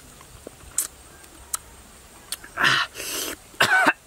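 Mouth sounds of a man eating langsat fruit: a few sharp clicks of chewing, then loud wet slurping and smacking bursts in the second half, with a short voiced sound near the end.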